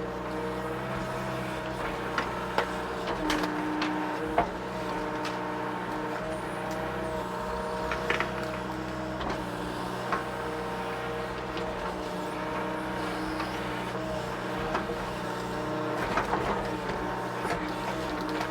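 Mini excavator's diesel engine running steadily under load while digging out a large tree stump, with a higher whine that steps up and down in pitch and a few short knocks.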